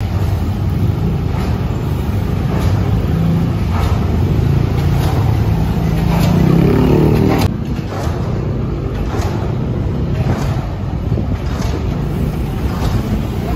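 Motorcycle and small-vehicle traffic running close by on a city street, heard from a moving bicycle. One engine grows louder and rises in pitch about six seconds in, then the sound drops sharply about halfway through.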